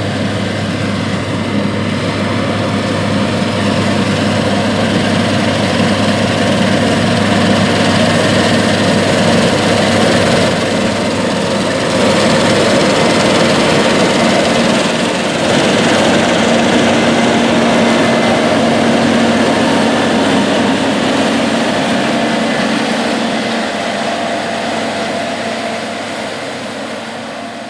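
New Holland CR8090 twin-rotor combine running under load while harvesting wheat: engine and threshing machinery making a loud, steady drone with a held hum. It swells over the first few seconds and fades away near the end.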